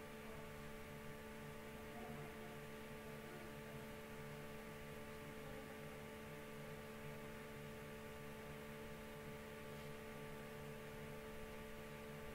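Steady electrical hum made of several constant tones over a faint hiss.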